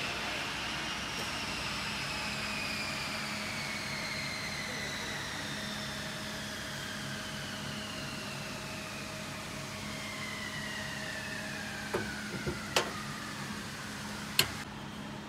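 A machine whine falling slowly and steadily in pitch over a steady low hum, with three or four sharp clicks near the end.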